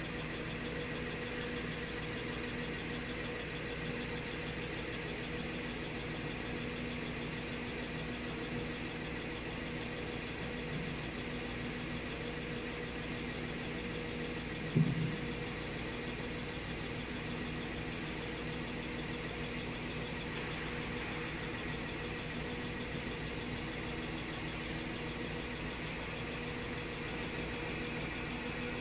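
CRI100A common rail injector test bench running steadily, a constant mechanical hum with a high steady whine, while an injector sprays into the test chamber. A single short knock comes about halfway through.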